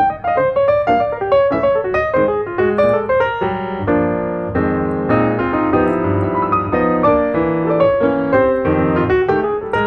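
Background piano music: a melodic line of struck notes over held chords.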